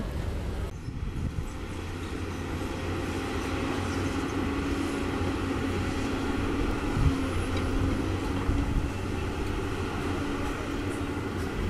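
CAT 320D excavator's six-cylinder diesel engine running steadily under digging load, a continuous low drone with a held tone through the middle, and a brief knock about seven seconds in.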